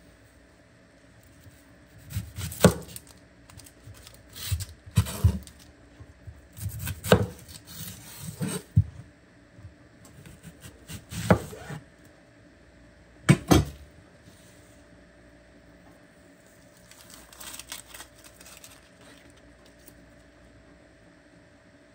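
Scattered knocks and clatter of kitchen work on a wooden cutting board and cookware: about half a dozen separate sharp knocks, some in quick pairs, then a fainter scraping handling sound near the end.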